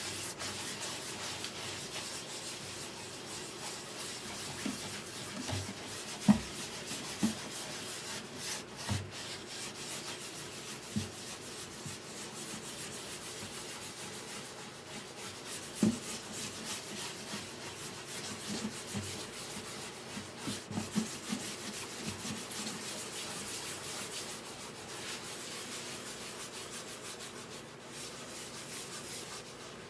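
Hand sanding on guitar wood: a continuous rubbing of abrasive paper, with a few short light knocks now and then.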